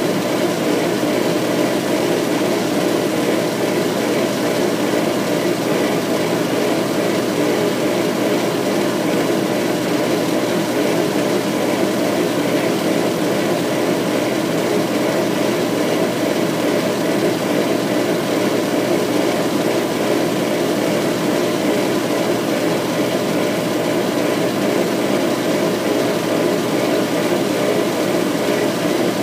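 Laser engraving machine running while it etches a design: a steady, low mechanical hum without pauses.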